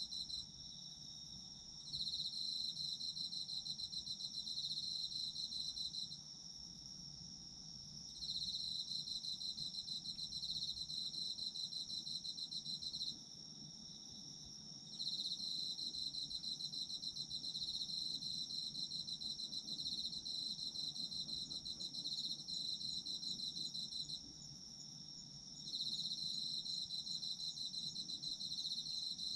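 Autumn insects calling. One holds a continuous high, steady trill, while a second sings a fast pulsed trill, slightly lower, in bouts of several seconds broken by pauses of about two seconds.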